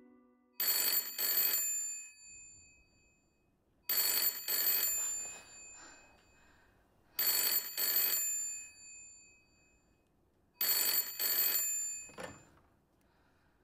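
Red rotary-dial telephone's bell ringing four times, each ring a quick double burst, a little over three seconds apart. The handset is then lifted off its cradle with a short clatter.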